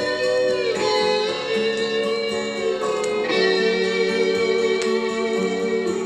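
Vinyl record on a turntable playing the instrumental intro of a 1980s Soviet pop song: a guitar melody over a band backing, with no singing yet.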